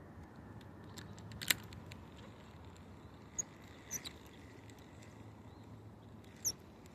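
Faint steady outdoor background with a few sharp clicks, the loudest about a second and a half in and softer ones later, and faint high chirps.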